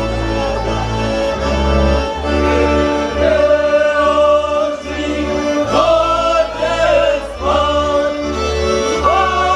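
A song: music with held chords and a bass line, and singing voices that come in about two to three seconds in.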